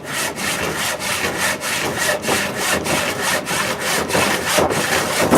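Rusty hand saw cutting through a wooden stool leg in quick, regular back-and-forth strokes, about three to four a second, with a louder burst at the very end.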